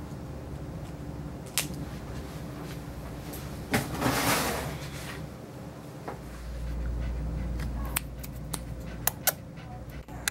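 Low steady room hum with scattered light clicks and a short rustle about four seconds in. A deep bass drone from outside the building comes in about six seconds in.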